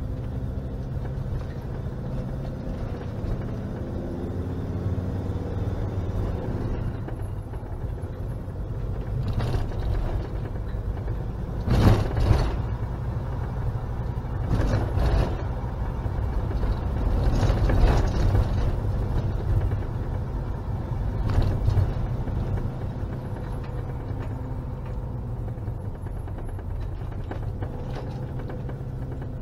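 Camper van engine and road noise heard from inside the cab while driving at low speed, a steady low rumble. Several knocks and rattles sound over it, the loudest about twelve seconds in and again near eighteen seconds.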